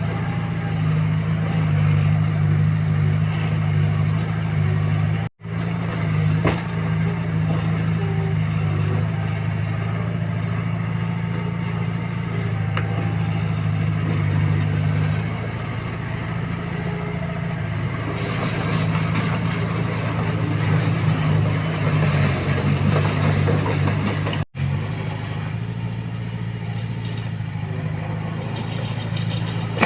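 Diesel engine of a Komatsu D21A bulldozer running steadily under load, with a stretch of extra mechanical clatter about two-thirds of the way through. The sound cuts out for an instant twice.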